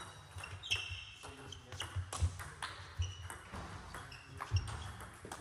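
Table tennis rally: the ball clicks sharply off the bats and bounces on the table in a quick, irregular back-and-forth.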